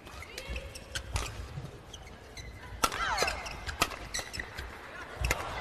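Badminton doubles rally: sharp racket strikes on the shuttlecock, a few seconds apart, and shoes squeaking on the court floor as the players move.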